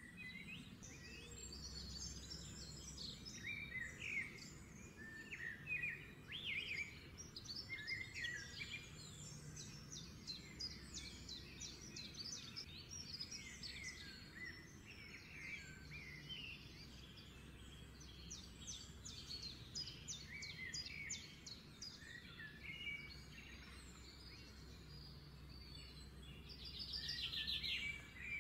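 Small birds chirping and twittering, many short calls overlapping, over a low steady hum; a fast trill near the end.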